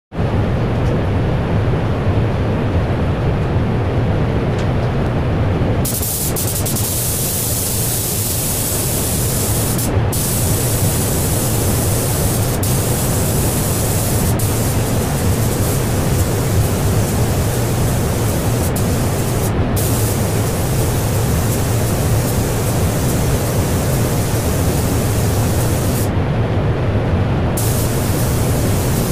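Paint spray gun hissing as it sprays paint, over a steady low rush of paint-booth ventilation. The gun's hiss starts about six seconds in and stops briefly twice, then for about a second and a half near the end, as the trigger is let off between passes.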